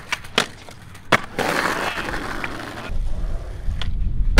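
Skateboard on a concrete curb and rough asphalt: a few sharp clacks of the deck and trucks striking the curb in the first second or so, then wheels rolling with a steady rumble. Another sharp tail pop comes near the end as the skater ollies off the ledge.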